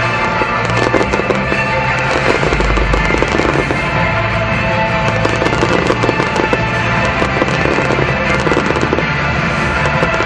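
Aerial fireworks show: rapid, overlapping shell bursts and crackle over loud music.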